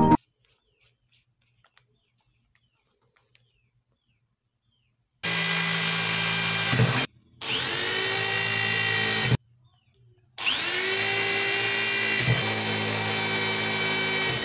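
Red corded electric drill boring holes into a wooden plank, run in three bursts of about two, two and four seconds, each rising quickly to a steady whine and winding down when released. The first five seconds are nearly silent, with a few faint ticks.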